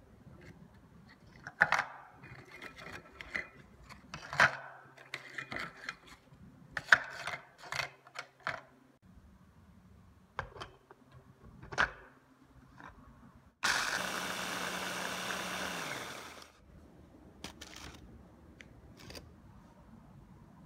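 Hard biscuits dropping and clattering into a plastic mini chopper bowl, a couple of clicks as the lid goes on, then the electric mini chopper's motor runs for about three seconds grinding the biscuits to crumbs and winds down.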